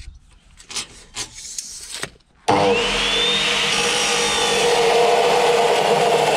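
A few faint knocks, then an electric abrasive chop saw switches on about two and a half seconds in, its motor whining up to speed, and the abrasive disc grinds steadily through steel box section.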